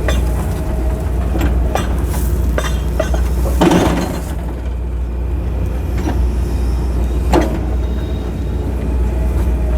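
John Deere excavator's diesel engine running steadily while digging a trench, with scattered knocks and a louder scraping burst about four seconds in as the bucket works the dirt.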